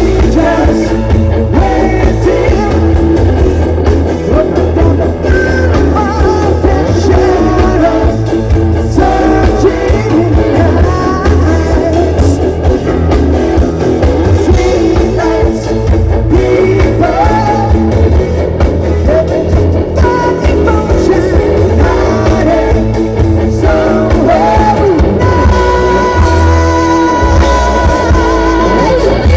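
Live rock band playing through a PA: a lead singer over electric guitar, bass guitar and a drum kit.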